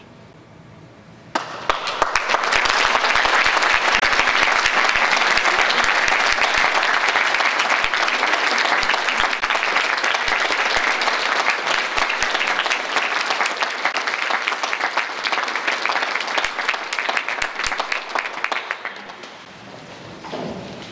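Audience applauding. It breaks out suddenly about a second and a half in, after a short hush, holds steady, and fades away near the end.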